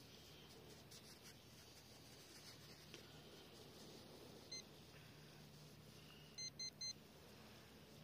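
Metal-detecting pinpointer probing the sand beeps faintly: one short beep, then three quick beeps about two seconds later, signalling metal close to its tip.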